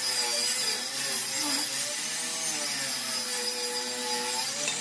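Table saw running and ripping maple into thin strips for edge trim; the blade's tone wavers slightly in pitch as it cuts.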